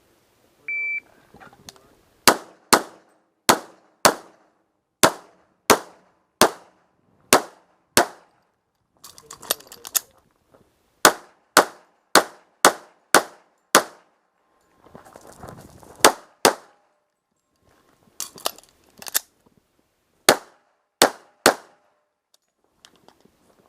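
An electronic shot timer's start beep about a second in, then pistol fire: rapid pairs of shots (double taps) with short pauses between strings, some shots followed by the ringing clang of steel targets being hit.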